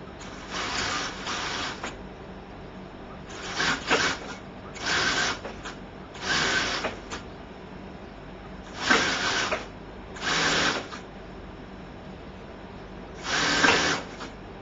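ALPHA SF 101GL industrial sewing unit stitching a sleeve in short runs. The machine starts and stops about eight times, running about a second each time, with brief pauses between runs.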